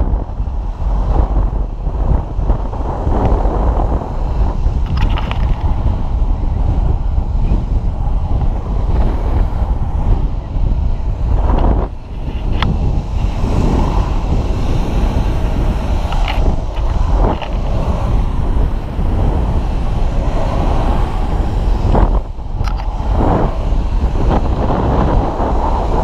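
Heavy wind buffeting an action camera's microphone, with the rumble of longboard wheels rolling fast down an asphalt road and a few sharp knocks.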